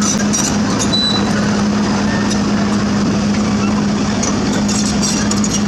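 Heavy diesel construction machinery running steadily, a constant low hum with scattered clicks and knocks on top.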